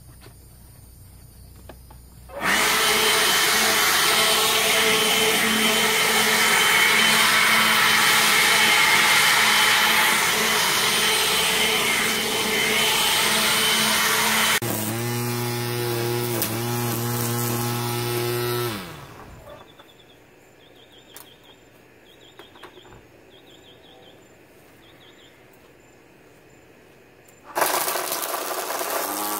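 Ryobi 18-volt cordless jet fan blower switching on suddenly and running at full power with a loud rush of air. About halfway through it drops to a lower setting with a steadier whine, then winds down and stops. After several seconds of quiet, the Ryobi cordless string trimmer starts up near the end.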